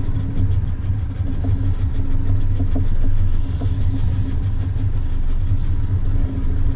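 Boat engine running steadily, a low drone with a constant hum.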